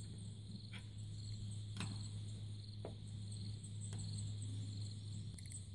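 Faint crickets chirping in a steady pulsing trill over a low steady hum, with a few faint clicks about once a second.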